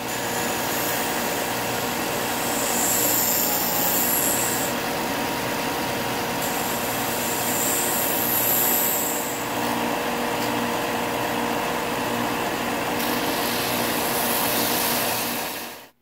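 WEN 4×36-inch belt and 6-inch disc sander running steadily, with a wire-wrapped wooden knife handle pressed against the sanding disc. A hissing grind comes and goes several times as the work is pressed on, sanding through the wire wrap to the copper underneath.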